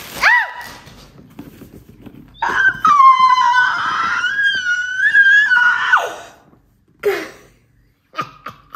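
A woman screaming with delight: a short squeal at the start, then one long high-pitched scream held for about three and a half seconds, and a brief falling cry a little later.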